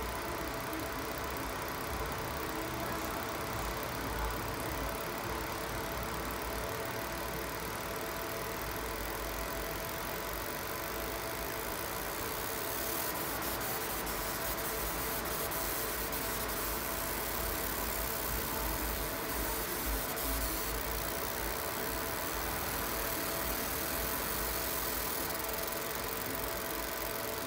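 30 W fiber laser marking machine running a long engraving job: a steady mechanical hum with faint steady tones. Partway through it grows a little brighter, with faint ticking.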